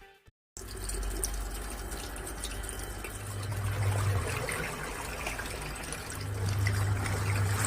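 Water running and churning in an LG P1600RT twin-tub washing machine, with a low hum that swells twice, about three and six seconds in.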